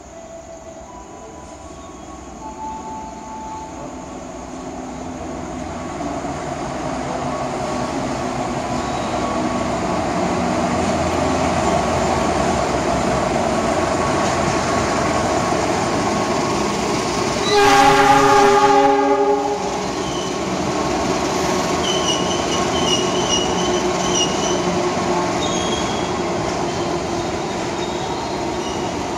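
A diesel locomotive hauling a passenger train approaches and runs past, the engine and the wheels on the rails growing steadily louder over the first ten seconds or so. About two-thirds of the way through it sounds one horn blast of about two seconds, the loudest sound. A few faint high squeals follow.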